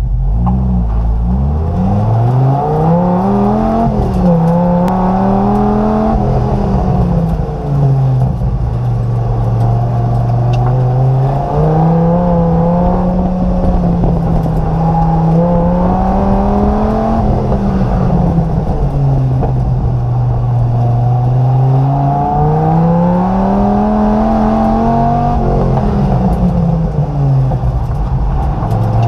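Dodge Viper GTS race car's 8.0-litre V10 heard from inside the cabin, launching hard from low revs at the start, then rising and falling in pitch several times as it accelerates and lifts between corners of an autocross course.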